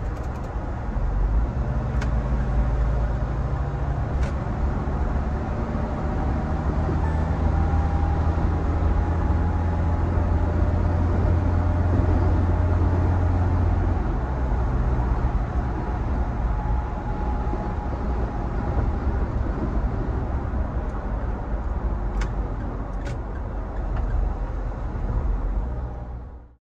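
2023 Mahindra Thar 4x4 automatic on the move: a steady engine drone with road noise, building through the first half and easing off about halfway, with a few light clicks. It cuts off abruptly just before the end.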